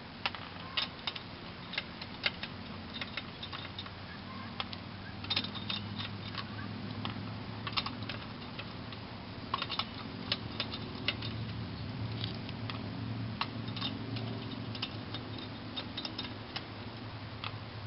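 Irregular light metallic clicks and clinks as the loosened lug nuts are spun off the wheel studs of a 1996 Ford Mustang GT, over a steady low hum.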